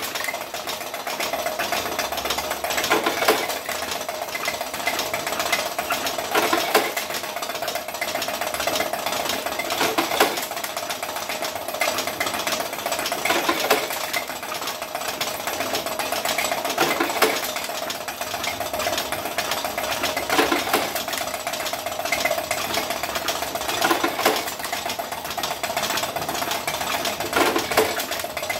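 Homemade automatic cigarette-making machine with a revolver-cylinder mechanism running while it makes filter cigarettes from moist kretek tobacco. A steady hum runs under fast mechanical clatter, with a louder clack about every three and a half seconds.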